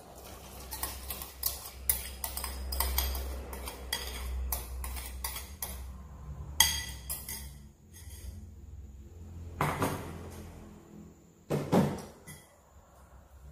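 A metal spoon scraping and tapping against a bowl in quick clinks as beaten egg is poured out into a wok, followed by two louder clatters of dishes being handled about ten and twelve seconds in.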